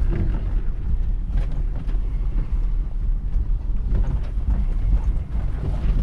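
Toyota 4Runner crawling over rough, overgrown ground, heard from inside the cabin: a steady low rumble of engine and tyres with scattered knocks and rattles from the truck jolting.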